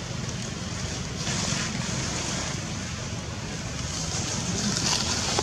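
Wind buffeting the microphone: a steady low rumble with swells of hiss about a second in and again near the end.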